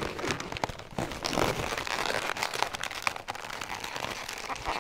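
Latex twisting balloons rubbing and squeaking against each other as they are twisted and wrapped by hand, in many short, uneven squeaks and rubs.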